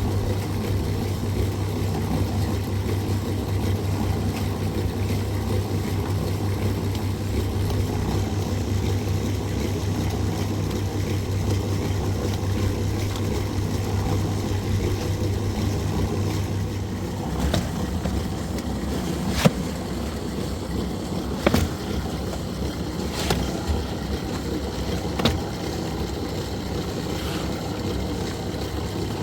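A motor running steadily with a low hum, easing slightly past the middle, with a few sharp knocks about two seconds apart in the second half.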